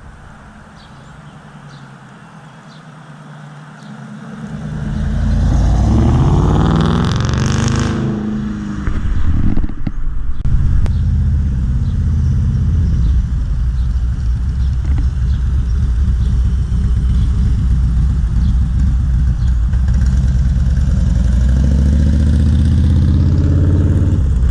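A car engine comes in about four seconds in, rising in pitch as it revs up, then runs loud and steady with a deep low sound. It cuts off suddenly at the end.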